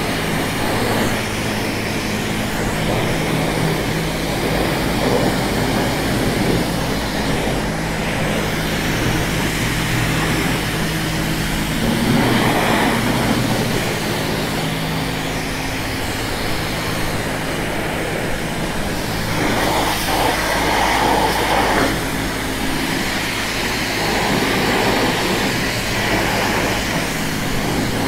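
High-pressure car wash wand spraying water onto a 50cc scooter: a continuous hiss of spray with a steady machine hum underneath, swelling briefly as the jet moves over different parts of the scooter.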